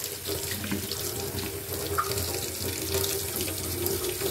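Tap water running steadily into a stainless steel sink, splashing over spider plant roots as they are rinsed clean of soil.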